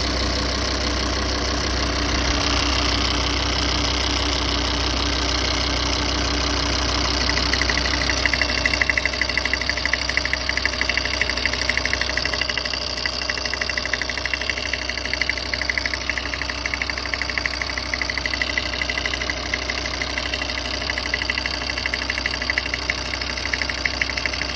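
Volvo XC60 2.4 five-cylinder diesel idling, with a fast, regular knocking that starts about seven seconds in and keeps going.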